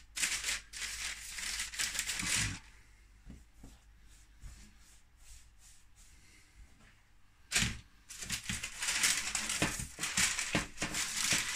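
Rustling and crinkling as hands shape balls of bread dough and handle them on greaseproof paper. It comes in two spells, the first couple of seconds and again from about two-thirds in, with a quiet stretch between.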